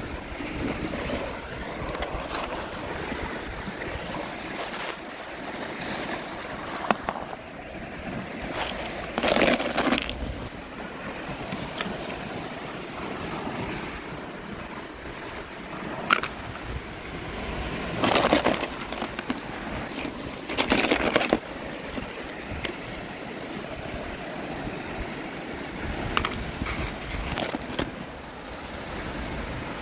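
Toy packaging handled and opened by hand: rustling and crinkling over a steady background hiss, with a few short, louder crinkles about a third of the way in and again a little past halfway.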